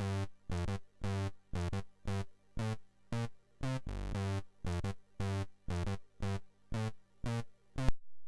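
Commodore 64 SID chip music: a steady run of short, decaying synth notes over a bass line, about two notes a second, which cuts off suddenly near the end.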